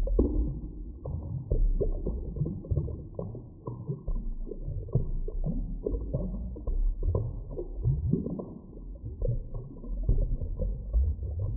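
Underwater ambience: irregular bubbling and gurgling pops over a steady low rumble, all of it dull and low-pitched.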